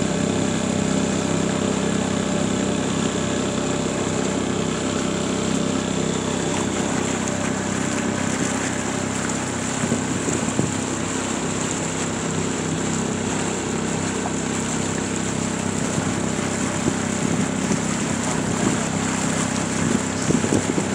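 Small boat's outboard motor running steadily as the boat moves along the river.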